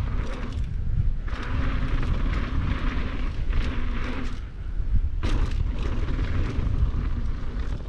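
Downhill mountain bike running fast down a dry dirt-and-gravel trail: a steady rush of wind buffeting the camera microphone over the crunch of tyres on loose dirt, with many sharp rattles and knocks from the chain and frame over the bumps.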